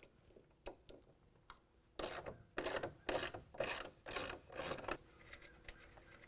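Hand socket ratchet clicking in a run of about six strokes, roughly two a second, as a nut is backed off a bolt, after a few light metallic clicks of the tools being fitted.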